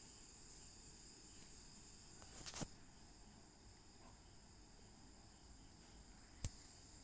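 Faint, steady chirring of crickets, with a short knock about two and a half seconds in and a sharp click near the end.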